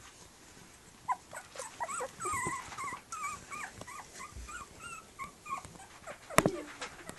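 Three-week-old Tibetan terrier puppies giving a run of short, wavering, high-pitched squeaks, starting about a second in. A single sharp knock near the end is the loudest sound.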